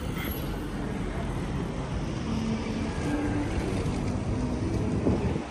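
City street ambience with a motor vehicle's engine running nearby, over a steady low rumble of traffic.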